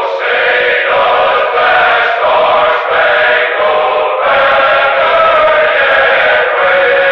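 A choir singing long, held chords with no clear words, changing chord every second or so.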